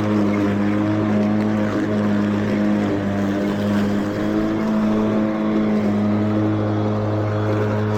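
A Mowrator battery-electric remote-control mower running with its blade spinning: a steady motor hum whose pitch wavers slightly as it works.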